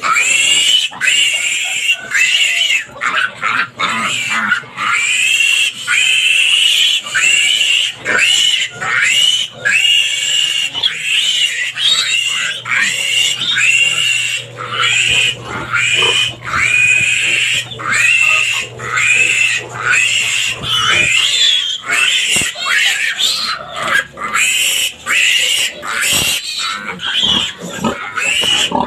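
A piglet squealing in distress over and over, shrill cries that rise in pitch and come about once a second without a break. These are the screams of a male piglet being held up by its hind legs for castration.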